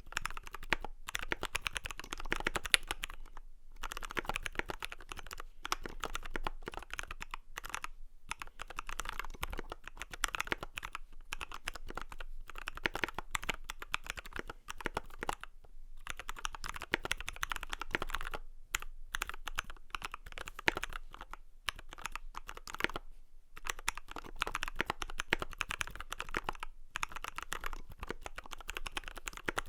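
Steady typing on a custom 60% mechanical keyboard: lubed C³ Equalz Dragon Fruit switches, brass plate with foam in a Poseidon PSD60 case, PBT cherry-profile keycaps. A dense run of key clacks, broken by several brief pauses.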